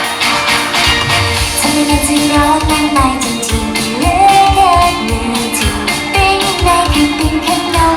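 Pop song with a steady drum beat; a female vocal melody comes in about two seconds in.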